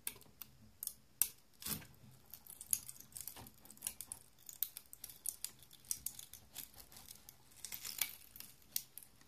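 Metal spatula scraping against an Ender 3's build surface as it is worked under a firmly stuck PLA print, with irregular small clicks and crackles of the plastic brim giving way. A few sharper clicks stand out about two seconds in and near the end.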